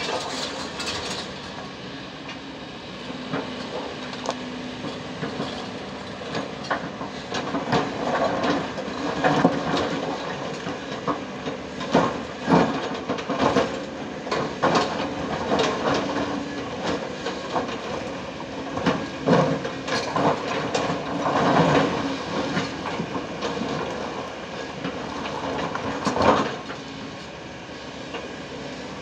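Kobelco 220 excavator's diesel engine running steadily under load as its bucket digs into a pile of broken rock, with irregular clattering and scraping of stones against the steel bucket.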